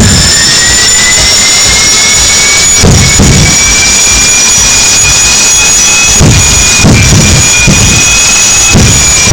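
Small jet engine running at a loud, steady roar with a hiss, its whine climbing in pitch over the first few seconds, holding, then dipping slightly near the end.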